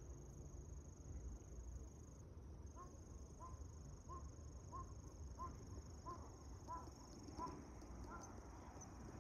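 Faint outdoor ambience with a steady high insect trill. From about three seconds in, a series of about nine short, evenly spaced calls, each a little under a second apart.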